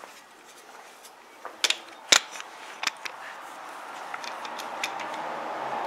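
Sharp plastic clicks and knocks of a camera being fitted onto a tripod head, with handling rustle; three loud clicks come between about one and a half and three seconds in, followed by a few lighter ticks.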